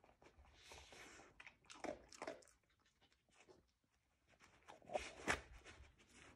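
Dog nosing through the fleece strips of a snuffle mat, sniffing and rustling the fabric and crunching kibble it finds, in faint scattered short sounds with the loudest about two seconds in and again about five seconds in.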